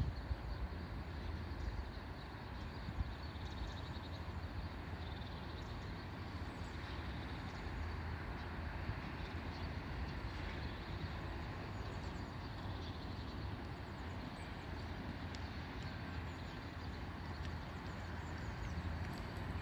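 Steady low outdoor rumble, like distant traffic, with faint scattered high ticks over it.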